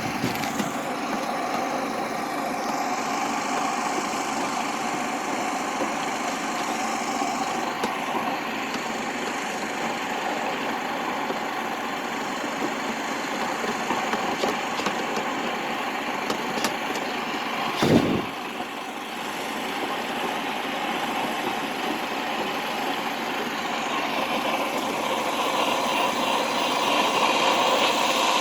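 Duct and dryer-vent cleaning machine running with a steady motor hum. There is one knock about eighteen seconds in, and the sound grows louder near the end.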